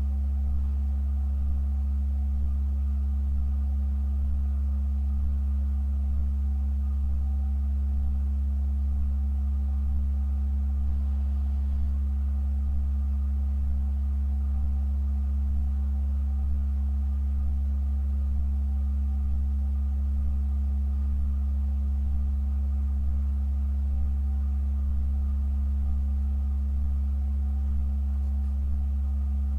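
Pipe organ holding a steady, unchanging low drone: a very deep bass tone with a quieter tone above it and faint higher partials, sustained without any change of pitch or loudness.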